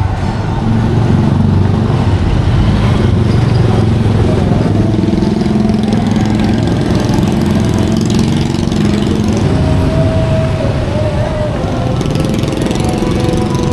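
Street traffic: motor vehicle engines running and idling close by, with people's voices around.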